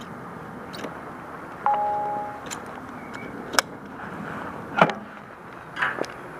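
Metal clips and buckles on a motorcycle pet carrier's straps clicking and clinking as they are fastened to the bike, a handful of sharp clicks with one short metallic ding about two seconds in.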